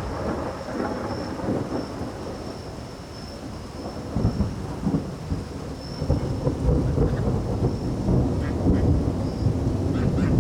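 Thunderstorm: rain falling under rolling thunder, the rumble building about four seconds in and staying heavy.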